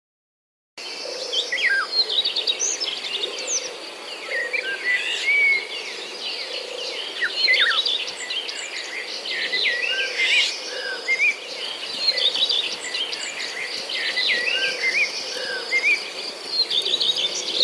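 Several birds singing and chirping together, many short overlapping calls and quick pitch sweeps over a steady high-pitched trill. It starts about a second in and cuts off suddenly at the end.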